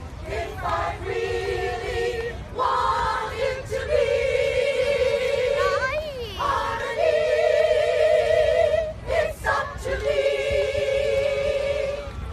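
Mixed choir of men and women singing a cappella: long held chords with vibrato, sung in several phrases with short breaks between them.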